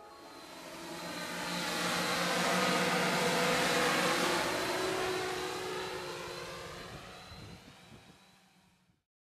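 An aircraft flying past: a rushing noise with a steady hum that swells to its loudest about three to four seconds in, then fades away and cuts off abruptly near the end.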